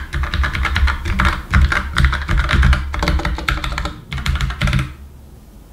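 Fast typing on a white Tesoro mechanical keyboard with Tesoro's own switches: a dense clatter of sharp key clicks with dull thuds under them. It stops about a second before the end.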